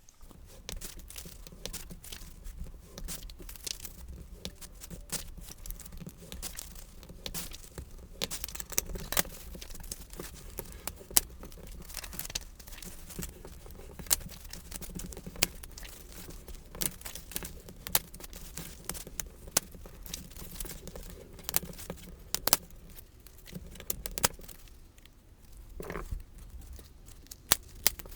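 Cardstock being scored with a bone folder on a scoring board and handled between strokes: scraping and paper rustling with frequent sharp clicks and taps, over a low steady hum.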